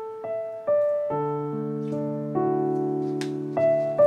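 Background piano music begins: a few single melody notes, then held chords underneath from about a second in.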